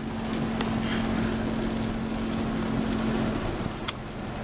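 A car driving on a wet road, heard from inside the cabin: a steady engine hum over an even rush of tyre and road noise, the hum dropping away about three and a half seconds in.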